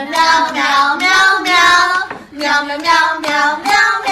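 A high voice singing long held notes in several phrases, with short breaks between them.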